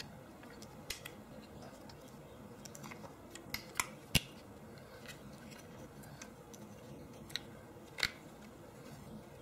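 Small metal-and-plastic clicks and taps as the trigger mechanism is worked back into a Glock 19's polymer frame by hand. The clicks are scattered and irregular, and the sharpest comes about four seconds in.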